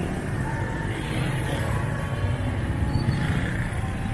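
Busy street traffic: motorcycle and car engines running together in a steady low drone.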